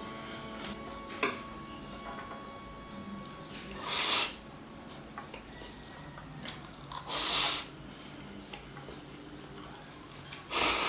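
A person slurping instant noodles off a fork: three short slurps, about four seconds in, about seven seconds in and again at the very end. A single sharp click comes about a second in.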